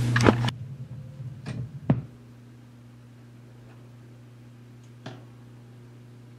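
Turntable clicks and knocks, several in the first two seconds and one more about five seconds in, over a steady low electrical hum from the record player's speaker.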